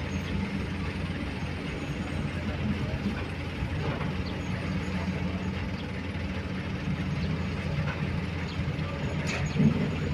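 Diesel engines running steadily: a small Isuzu dump truck driving closer over dirt ground while a Komatsu excavator works behind it. A sharp knock comes near the end as the truck draws near and gets louder.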